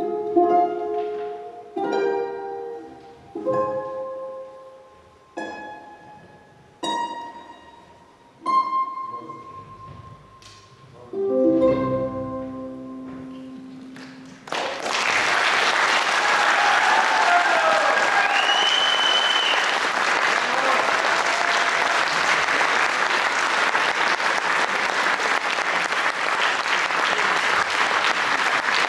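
Ukulele and string chamber orchestra playing the closing chords of a divertimento: single plucked chords spaced about a second and a half apart, each ringing and fading, ending on a lower final chord. A few seconds later audience applause breaks out suddenly and keeps on steadily.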